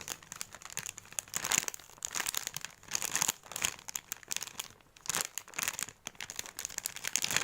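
Plastic packaging crinkling as a squishy toy in its wrapper is handled and squeezed, in irregular runs of crackles.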